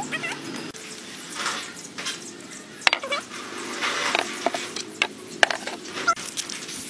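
Hands packing raw baby corn, chilies and green onions into a whole pig carcass: scattered sharp clicks and short rustles, with a brief hiss of seasoning sprinkled over the filling about four seconds in.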